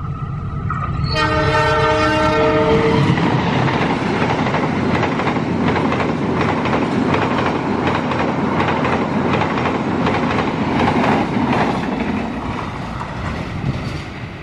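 Argo Dwipangga express train, hauled by a diesel locomotive, passing at speed. About a second in the locomotive sounds a multi-tone horn for about two seconds. The carriages then rush past with a fast clickety-clack of wheels over the rail joints, fading over the last couple of seconds.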